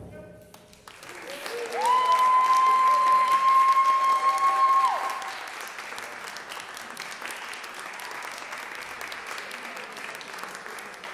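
Audience applauding after a percussion piece ends, swelling about a second in and then slowly fading. In the first few seconds one long high-pitched call from the crowd rises in, holds steady for about three seconds, and drops away.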